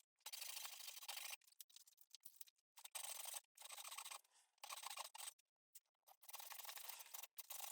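Faint saw cutting through wood, a rough rasping noise in short choppy stretches broken by sudden cuts.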